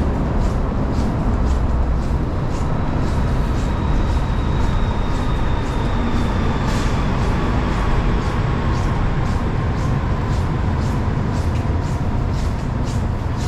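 Footsteps crunching through snow at walking pace, about two a second, over a steady low rumble of wind and city traffic, with a faint falling whine from a passing vehicle around the middle.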